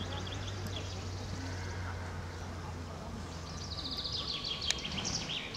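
Outdoor ambience with a low steady hum that fades midway, and a small bird singing a quick, high, repeating trill for about a second and a half near the end.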